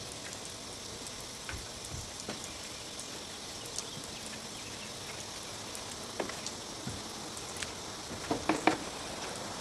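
Scattered light knocks and clicks of gear being handled, over a steady faint hiss, with a quick cluster of sharper clicks near the end.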